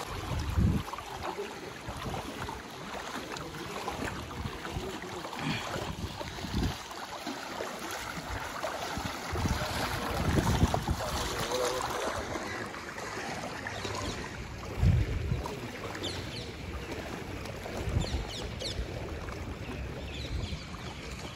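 Legs wading through knee-deep floodwater, sloshing and splashing with each stride, with a few short low thumps.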